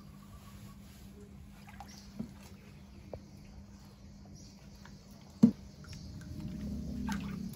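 Water sloshing and splashing in a plastic tub as a wet husky shifts its paws, growing louder near the end, with a single sharp knock about five and a half seconds in.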